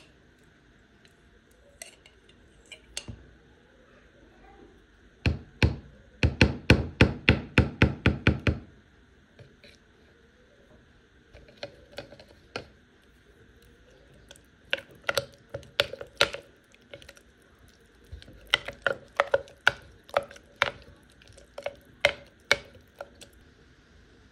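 A spoon knocking and scraping against a clear cup while stirring peanut butter into a thick chocolate smoothie mixture. A fast run of about a dozen sharp knocks comes about five seconds in, then scattered clusters of clicks follow.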